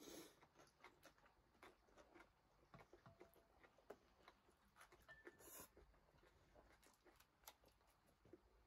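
Near silence with faint eating sounds: scattered small clicks of chopsticks and utensils against ceramic bowls, and two brief soft rushes, one at the start and one about halfway through.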